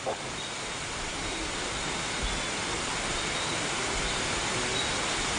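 Steady, even rushing noise that grows slowly louder.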